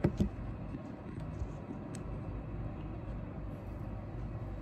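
A couple of knocks as a phone is set down on a surface, then a steady low background rumble.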